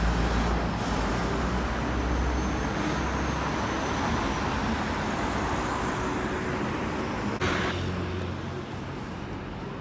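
Steady low rumble of a motor vehicle's engine and road traffic, with a sharp click about seven and a half seconds in, after which the rumble is a little quieter.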